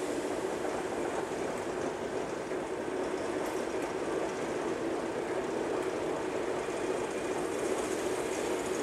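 Slow shunting movement of the A4 locomotive Sir Nigel Gresley and its LNER tender through the rail yard: a steady, even rumble with no distinct exhaust beats or wheel clicks.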